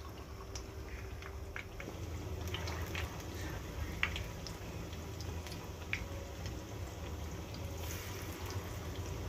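Hot oil in a kadhai sizzling and bubbling as gram-flour-battered egg pieces deep-fry, with scattered small pops and crackles.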